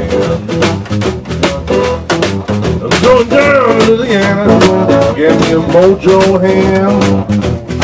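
Live acoustic blues band playing an instrumental passage: resonator guitar, upright double bass and a snare drum keeping a steady beat, with a lead line that bends and wavers in pitch.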